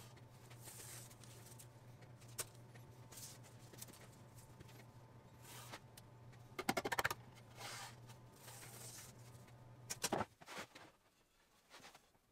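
Double-sided tape being pulled off its roll and pressed along a thin wooden drawer face: faint crackles, with short rapid rasping pulls about seven seconds in and again near ten seconds. A low steady hum runs underneath and stops about ten seconds in.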